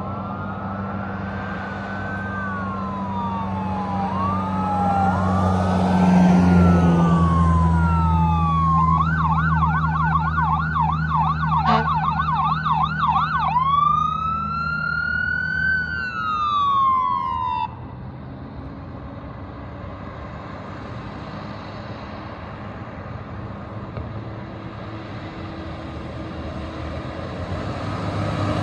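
Fire engine siren approaching from a distance: slow rising and falling wails, then a fast yelp from about nine seconds in, then one more wail that cuts off suddenly at about eighteen seconds. A deep, steady air-horn tone sounds under the siren for the first dozen seconds. After the siren stops, the truck's engine and road noise grow louder as it nears.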